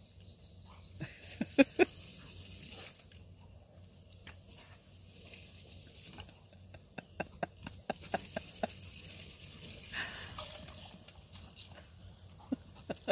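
A large dog snapping its jaws at the spray from a garden hose: short, sharp wet snaps in clusters, two loud ones about a second and a half in, a quick run of them around seven to nine seconds, and more near the end.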